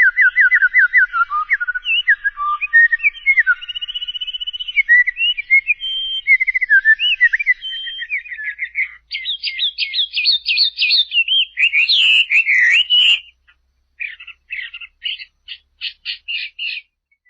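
A bird singing a long, varied song of quick whistled notes and trills, switching from one repeated phrase to the next every second or two. A short break comes about three-quarters through, then a run of short clipped notes.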